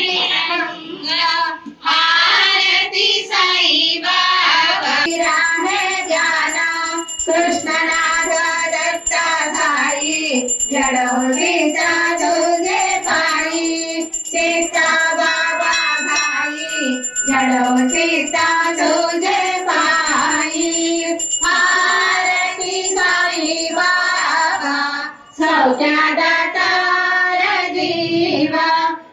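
A group of devotees, mostly women, singing a devotional aarti hymn together in unison, with regular percussive strikes keeping time. The singing pauses briefly twice.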